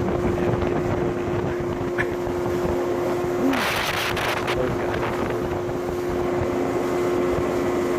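Boat's outboard motor running at a steady pitch under way, with wind and water rushing, while the boat is run to clear flood water out of the hull. About three and a half seconds in there is a brief loud burst of hiss lasting about a second.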